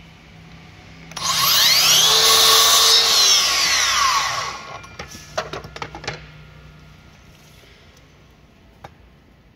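Makita LS002G 40V cordless miter saw's brushless motor spinning up and its blade cutting through a thin strip of wood, the whine rising then falling as the blade winds down after about three seconds. A few knocks follow.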